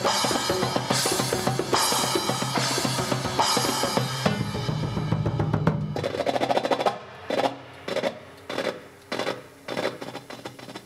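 Drum kit and hand percussion played fast and loud with a cymbal crash about every second, swelling into a drum roll about four seconds in, then dropping to soft, sparse strokes on a metal darbuka (goblet drum) about twice a second.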